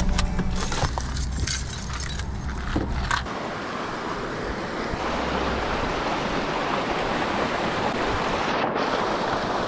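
Clattering and knocking of handling for the first three seconds or so, then a mountain creek rushing over rocks: a steady, even hiss of white water.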